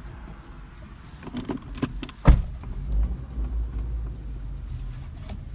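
Car sounds: a few light clicks, then one loud thump about two seconds in, followed by a low rumble that slowly fades.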